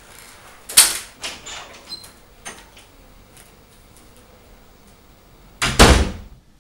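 Panelled interior door pulled shut near the end with a loud bang, two hits close together as it slams and latches. About a second in there is an earlier sharp knock, followed by a few lighter clicks and knocks.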